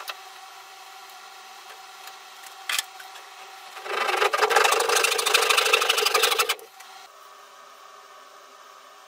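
Hand saw cutting through a pallet-wood trim board in quick rasping strokes for about three seconds, starting a little under four seconds in. A single sharp knock comes shortly before.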